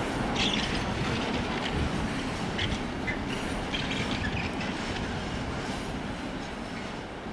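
Container freight train's wagons rolling along the tracks, with a few short high squeals from the wheels, the sound fading steadily as the train draws away.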